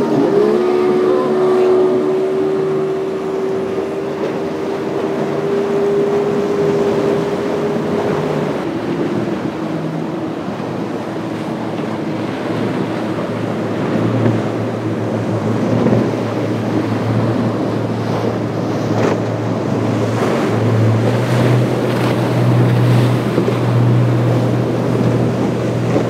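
Outboard-powered boats running at speed through choppy inlet water. A steady engine drone is heard for the first eight seconds or so, and a lower engine hum comes in about fourteen seconds in, over the continuous rush of waves and wind.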